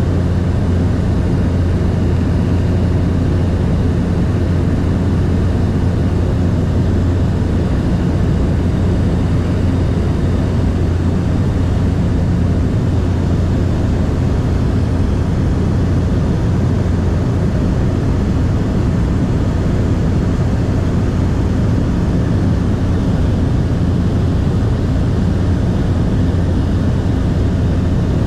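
Light aircraft's piston engine and propeller running steadily in cruise, heard from inside the cabin as an even, low hum that doesn't change.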